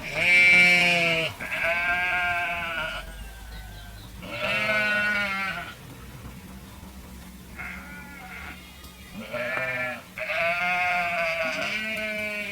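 Sheep bleating, about six calls one after another, each lasting about a second.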